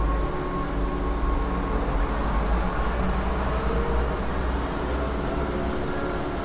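A steady low rumble with faint steady tones above it.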